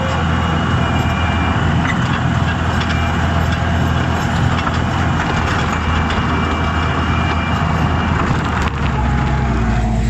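Skid steer loader's engine running steadily, its note shifting near the end.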